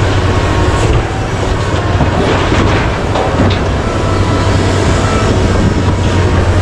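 Komatsu PC1350-11R mining excavator's diesel engine running steadily under load with a deep hum. Rock and coal clatter into the steel dump truck body between about two and three and a half seconds in as the bucket is emptied.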